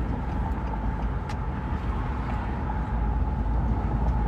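Car driving, heard from inside the cabin: steady low road and engine rumble, with a faint steady whine and a single light click about a second in.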